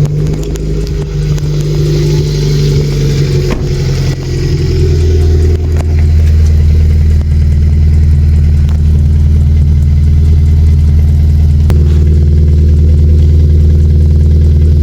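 Hyundai Veloster 1.6 GDI four-cylinder engine idling just after starting, heard through a muffler-delete exhaust with motorcycle exhaust piping where the muffler was. About five seconds in, the idle drops to a lower, louder, steady note.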